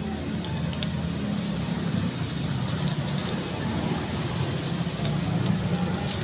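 Steady low rumble of motor traffic, with a few faint clicks.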